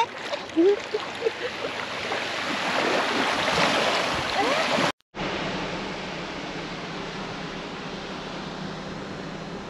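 Shallow water lapping and splashing at the shoreline. About halfway through, a sudden cut gives way to the steady drone of a four-wheel drive travelling on a sandy track, heard from inside the cabin.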